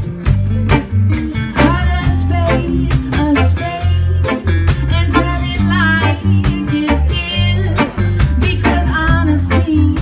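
Live rock band playing: electric guitars, electric bass, a Pearl drum kit and keyboard, with a steady bass line and regular drum hits under bending, wavering guitar or vocal lines.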